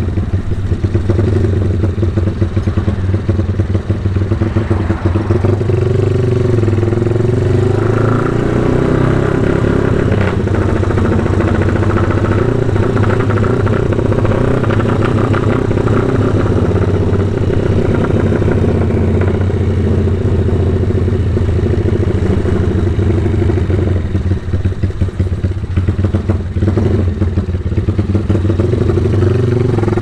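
Motorcycle engine running steadily while being ridden, its pitch lifting a little from about six seconds in and then holding.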